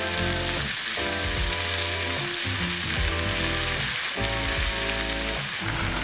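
Meat and vegetables sizzling steadily in a cast iron skillet over a wood fire, under background music with slow chord changes.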